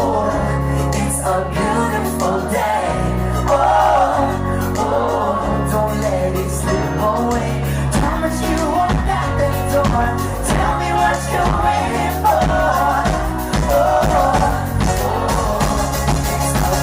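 Background pop music with singing and a steady bass line.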